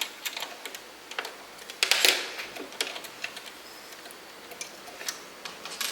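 Scattered small clicks and light metallic ticks of a sewing machine's needle clamp being loosened and the old needle taken out by hand. There is a louder brush of handling about two seconds in.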